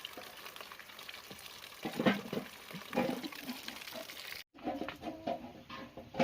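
Running water trickling and splashing, with a couple of louder knocks. After an abrupt cut, short clucking calls of chickens.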